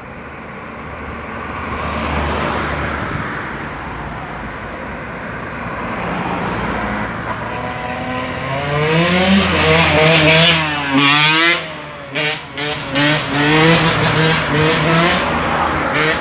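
Cars driving up a highway past the roadside, their tyre and engine noise swelling as each one goes by. Past the middle, a louder sound of several pitched tones joins in, wavering up and down and then breaking up choppily.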